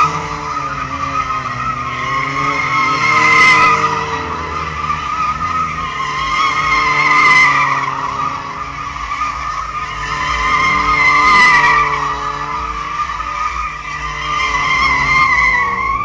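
Tofaş Şahin's tyres squealing continuously as the car does donuts, with its engine running under the squeal. The squeal swells louder about every four seconds as the car comes round on each circle.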